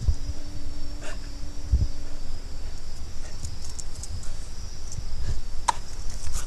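Night insects, crickets among them, trilling steadily in a high band, with low thumps and rumble close to the microphone near the start and again about two seconds in, and a few sharp clicks later.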